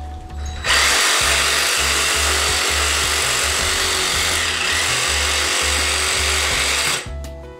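Cordless reciprocating saw cutting through a sheep carcass, running steadily from about a second in until just before the end.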